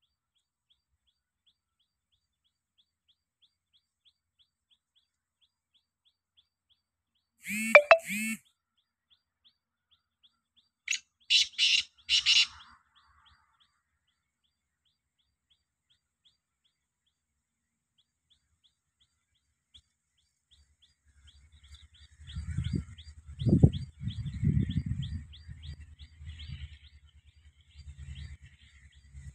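Black francolin calling: a loud two-note call about eight seconds in, then a harsh series of four quick notes a few seconds later, over faint regular ticking. Near the end a low rumble comes in with a fast run of ticking chirps.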